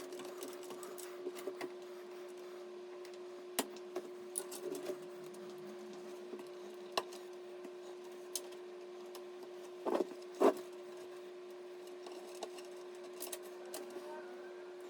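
Scattered light clicks and taps of hardware being handled over a steady hum, with two louder knocks about ten seconds in.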